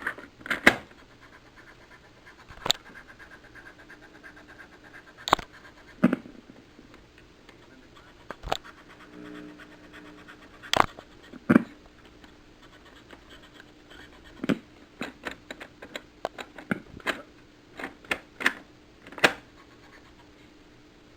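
Irregular clicks and knocks from the front-loading cassette deck of an Electrobrand stereo as it is operated and handled, more of them near the end, over a faint steady hum.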